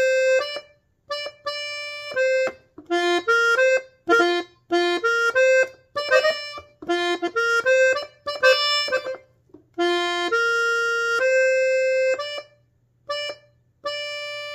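Hohner three-row diatonic button accordion in F, played right hand only: a single-line melody of short, detached notes with brief silences between phrases, and a couple of notes held for about a second past the middle.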